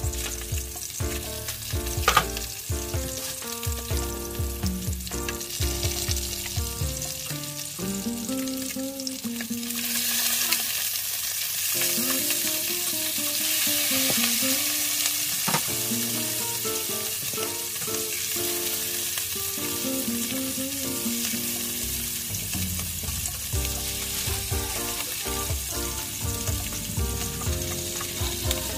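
Salmon fillets sizzling in hot oil in a nonstick frying pan, with a spatula scraping and knocking as the pieces are turned. The sizzle grows louder about ten seconds in.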